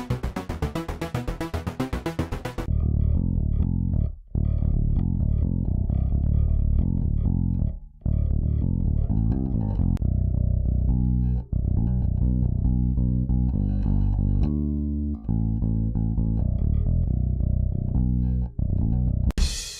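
A pulsing nu-metal synth loop plays briefly and cuts off, then a heavy nu-metal bass guitar loop plays its riff, stopping and starting again every few seconds. A drum loop with hi-hat and kick starts right at the end.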